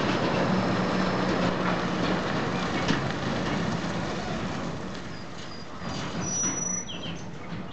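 Scania tipper truck with a drawbar trailer driving past on a dirt road: its diesel engine running with a steady low note, with knocks and rattles. It fades from about four seconds in as it pulls away.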